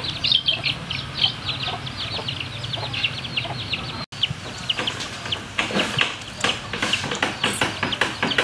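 Birds calling: rapid, repeated short chirps without a break, apart from a brief cut-out about four seconds in.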